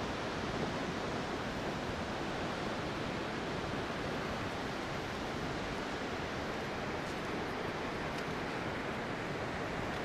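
Steady, even rushing of Vøringfossen waterfall and its river down in the gorge.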